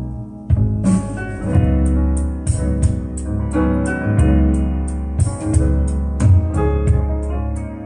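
Piano-led ballad played back from a vinyl LP on a turntable. About half a second in, the fuller band comes in with a steady beat.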